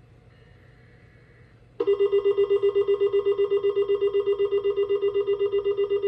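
NOAA weather radio sounding its alert for a Required Weekly Test: a loud, rapidly pulsing electronic beep that starts suddenly about two seconds in. Just before it comes a faint burst of the broadcast's digital data header.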